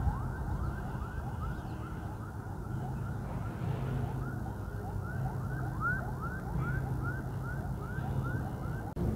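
A chorus of frogs calling: many short rising chirps, several a second and overlapping, over a steady low rumble.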